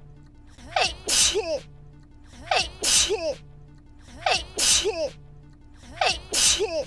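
A single sneeze looped back to back, about every 1.8 seconds: four identical sneezes, each a short voiced intake, a loud hissy burst, then a falling voiced tail.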